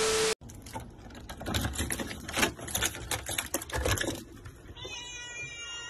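A brief burst of TV static with a steady beep, then a rapid, irregular clatter of clicks and taps for about four seconds. Near the end, a cat's drawn-out meow begins.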